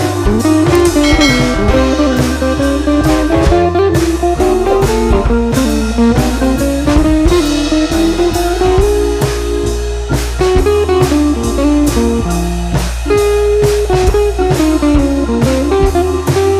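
Background music: a blues-style guitar tune with a bass line and a steady drum beat.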